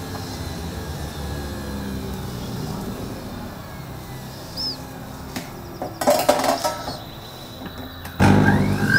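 Clinks and knocks of handling around an electric juicer. About eight seconds in, the Sujata juicer's motor comes on loud with a rising whine as beetroot pieces are pushed through it.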